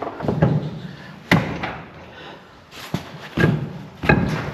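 Knocks and thumps of a heavy steel truck wheel and tire being worked onto its hub by hand: a sharp knock about a second in, then a few more clunks toward the end.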